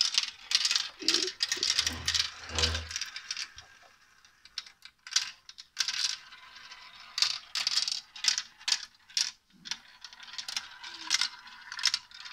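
Marbles rolling and clattering down a plastic marble run, rattling through its tubes, funnels and curved tracks in runs of quick clicks with short pauses between. Two low knocks come about two seconds in.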